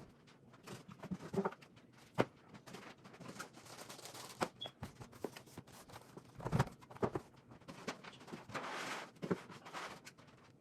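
Handling of boxed computer gear: scattered light knocks and thuds as items are set down, with stretches of rustling packaging, the longest rustle near the end.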